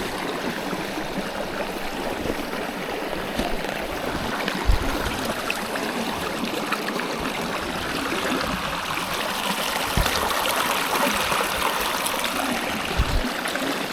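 Small mountain stream running steadily over rocks, with a few dull low thumps about five, ten and thirteen seconds in.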